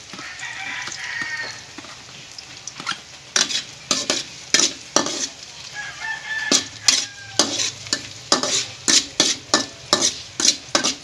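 Minced garlic sizzling in hot oil in a metal wok while a stirring utensil scrapes and knocks against the pan. From about three seconds in, the sharp scrapes come about twice a second over the steady sizzle.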